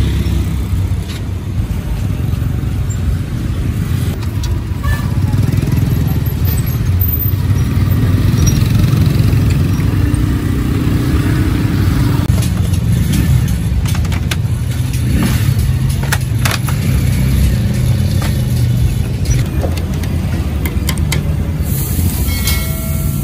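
Dense street traffic of motorbikes, motorbike tuk-tuks and cars running and passing close by, a steady engine noise throughout.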